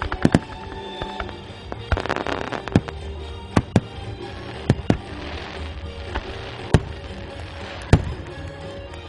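Fireworks bursting overhead: a string of sharp bangs every second or so, with a dense burst of crackle about two seconds in and a softer crackling hiss in the middle, over music.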